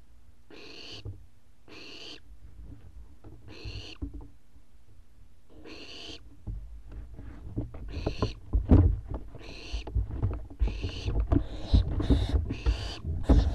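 Owlets in a nest box giving short raspy calls, one roughly every second or two. From about halfway through, these are joined by knocks and scuffling as the birds move about on the box floor.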